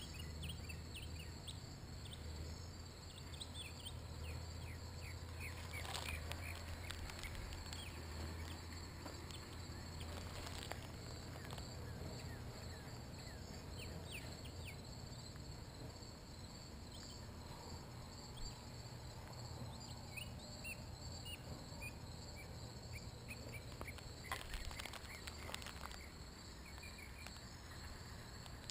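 Quiet rural background of insects chirping steadily, with scattered short high chirps over a low steady hum. A few sharp knocks fall in the middle and near the end.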